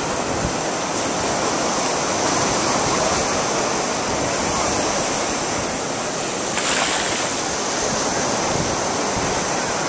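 Ocean surf breaking and washing up the beach: a steady rushing hiss, with a brighter hiss of a wave's swash coming in about two-thirds of the way through.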